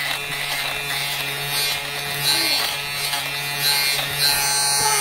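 Electric lint remover (fabric shaver) running steadily, its small motor humming as it is pushed over cloth to shave off pills and fuzz.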